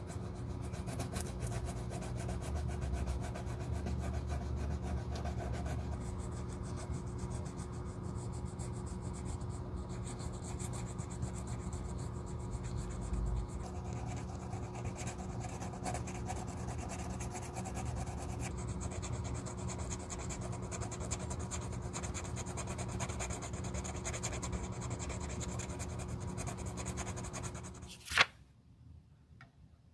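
Sandpaper rubbed back and forth over dried white filler on the rubber-pebbled edge of a leather driving loafer: a steady, continuous scratchy rubbing. It stops near the end with a single sharp click.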